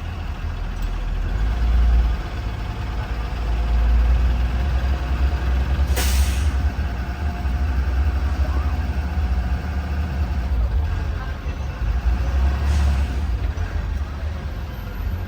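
2020 Blue Bird Vision school bus running with a steady low engine rumble. A short, sharp hiss of air comes about six seconds in and a fainter one about thirteen seconds in, typical of the air brakes releasing.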